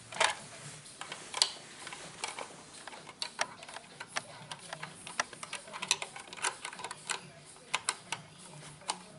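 Plastic Playmobil toy parts clicking and tapping as they are handled, in irregular sharp clicks a few times a second.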